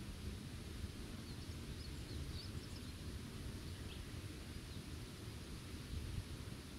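Wind buffeting the microphone with an uneven low rumble, and a few faint bird chirps about one to three seconds in.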